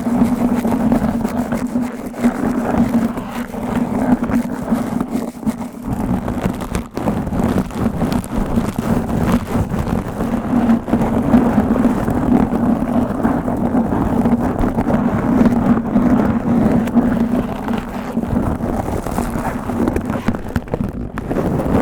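Fingers scratching and rubbing aggressively right on a microphone: a loud, continuous rough scratching made of many rapid strokes, over a steady low drone.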